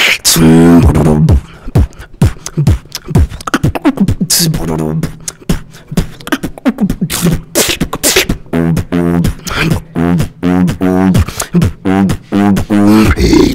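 Solo beatboxing: a fast run of mouth-made drum hits and sharp clicks mixed with hummed bass tones, some sliding down in pitch.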